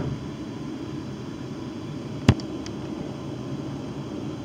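Steady low rumble inside a class 350 Desiro electric multiple unit travelling along the line, with one sharp knock about halfway through.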